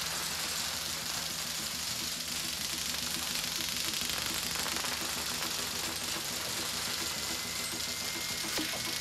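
Airsoft M134 minigun firing steadily and without a break, its electric motor spinning the barrels while compressed gas drives out the BBs at a rapid rate.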